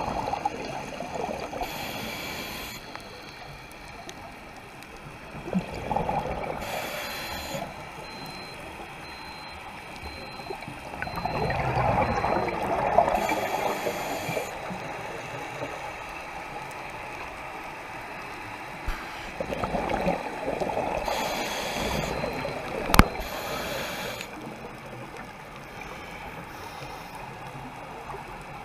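Scuba diver breathing through a regulator underwater: short hissing inhales alternating with longer rushing, gurgling surges of exhaled bubbles, a breath every several seconds. One sharp click sounds about three-quarters of the way through.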